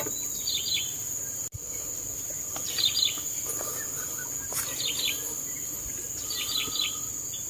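Steady high-pitched insect drone, with a bird repeating a short cluster of chirps about every two seconds.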